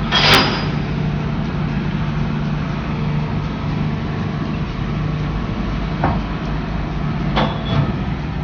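Heavy diesel machinery running steadily at low revs, with a short burst of hiss just after the start and a few brief clanks later on.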